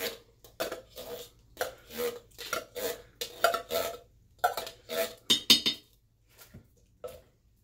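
Large metal can of baked beans knocked and scraped while held upside down to empty it: a run of irregular metallic knocks and clatter, about three a second, stopping near the end.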